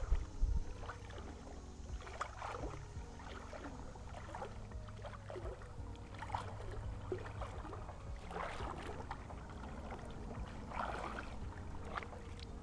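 Creek water sloshing and splashing irregularly around a wading angler's legs, over a low steady rumble.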